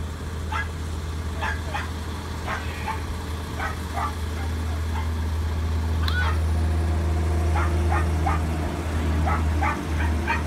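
Several dogs barking and yipping in short repeated calls, with a higher yelp about six seconds in, over a steady low motor hum.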